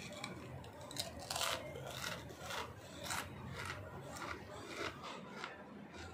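A person biting and chewing Lay's potato chips: a string of crisp crunches, about two a second.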